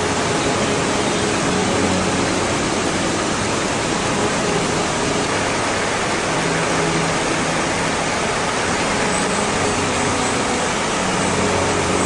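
Steady rush of a waterfall and fast stream pouring over rocks, an even, unbroken roar.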